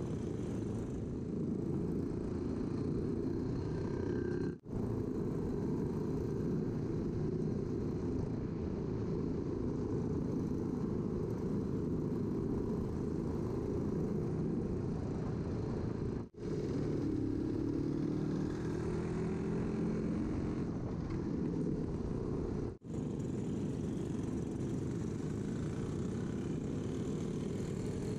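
Vintage Jawa motorcycle engine running under way, heard from the bike itself as a steady low drone, with the engine note rising briefly about two-thirds of the way through. The sound cuts out for an instant three times.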